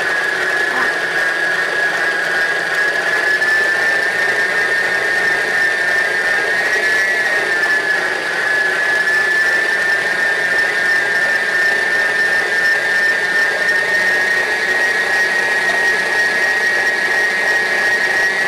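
Electric stand mixer running steadily, beating cake batter while liquid ingredients are added. It gives a high motor whine with a slight wobble in pitch about seven seconds in.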